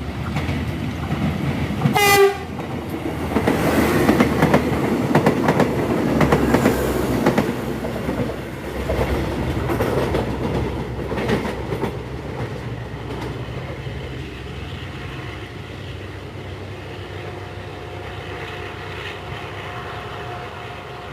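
An airport passenger train gives one short horn blast as a greeting to the trackside watcher, about two seconds in. The train then rolls past with a rhythmic clickety-clack of its wheels over the rail joints, fading away.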